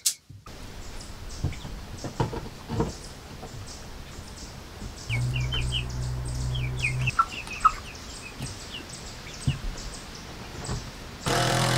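Scattered knocks and taps as wooden strips are handled and held against a wall, with short bird chirps midway and a low steady hum for about two seconds. Near the end a cordless drill runs briefly, for about a second.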